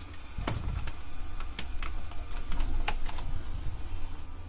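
Toshiba K60 VCR's tape-loading mechanism running: a string of irregular clicks and ticks over a low hum as the loading arm tries to thread the tape. This is the deck's fault at work: the loading arm only gets halfway and stalls.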